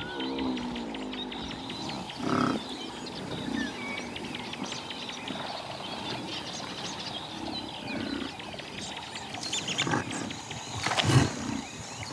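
African buffalo grunting and bellowing in a herd: a falling call at the start, then several more low calls, the loudest about eleven seconds in. Small birds chirp and tick faintly behind them.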